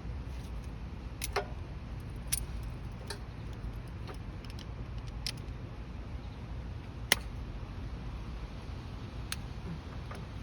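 Scattered sharp metallic clinks and clicks of hand tools against metal parts while a generator carburetor is being taken apart, about six in all, the loudest about seven seconds in, over a steady low hum.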